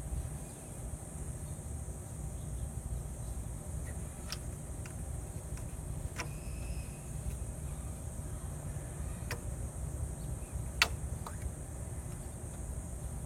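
A few sharp clicks and taps, the loudest about eleven seconds in, over a steady low rumble and a constant high-pitched hum.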